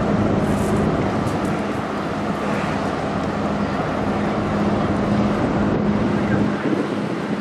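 Steady engine drone with a low hum from passing vessels, the cargo ship Caroline and a small motorboat running alongside it, over wind and water noise. The deepest rumble thins near the end.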